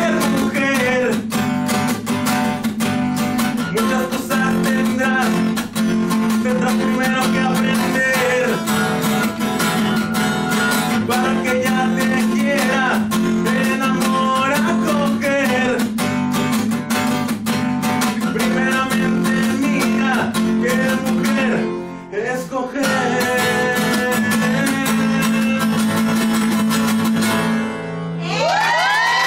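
Steel-string acoustic guitar strummed steadily while a man sings in Spanish. Near the end the strumming stops and a long sung note is held over the ringing guitar.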